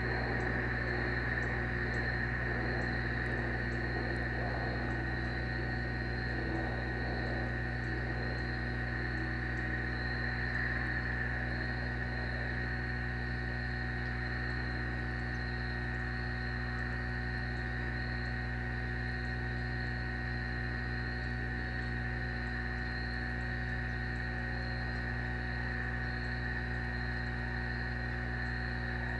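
Steady low electrical hum of the nest camera's audio, with a constant high-pitched insect chorus above it.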